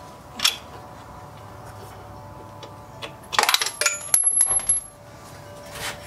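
Metal parts clinking as the Honda Grom's stock rear shock and its mounting hardware are worked free: a single sharp click about half a second in, then a burst of ringing metallic clinks and rattles between about three and five seconds in.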